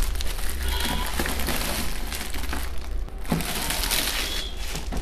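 Thin protective plastic film crinkling as it is peeled off and handled on a new inkjet printer, a dense crackly rustle with a short lull about three seconds in.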